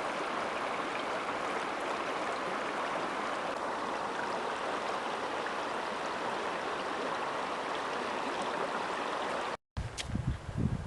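Mountain creek rushing, a steady even wash of water. After a cut near the end, uneven low rumbling gusts of wind on the microphone.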